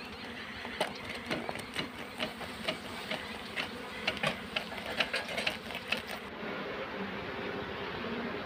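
Bee smoker bellows being pumped in quick strokes, puffs of air with a clack of the bellows about twice a second, over the steady hum of honeybees. The pumping stops about six seconds in, leaving the bees' hum.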